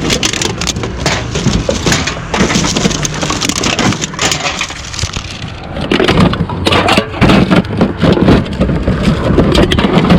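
Empty aluminium soda and beer cans being grabbed and handled, a dense run of crinkling and clattering, lighter for a moment in the middle.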